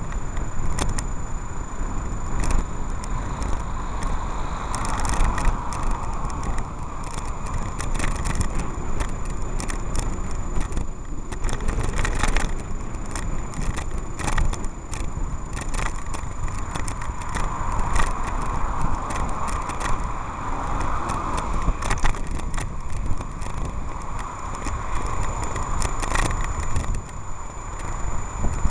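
Wind rumble on the microphone and road noise from a bicycle being ridden along a city street, with frequent sharp rattles and clicks from the bike jolting over the road surface. Cars pass, swelling in loudness twice.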